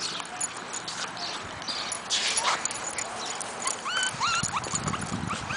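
One-month-old terrier-chihuahua mix puppies whimpering: short, high squeaky cries that come thick and fast in the second half. There is a brief scuffing noise about two seconds in.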